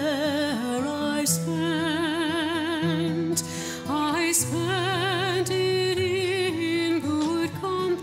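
Background music: a melody with a wavering vibrato over held low notes.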